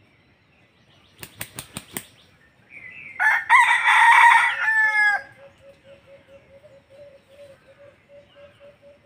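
Junglefowl rooster crowing. About five quick wing claps come a second in, and the crow follows about two seconds later, lasting about two seconds and ending in a few short falling notes.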